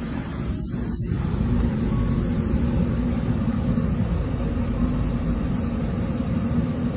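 A car engine idling steadily, keeping the heater running, heard as a low rumble with a faint steady hum.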